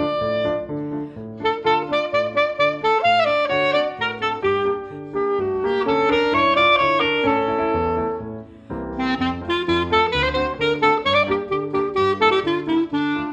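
Clarinet playing a traditional klezmer melody over piano accompaniment. The phrases are broken by short pauses about a second in and about two-thirds of the way through.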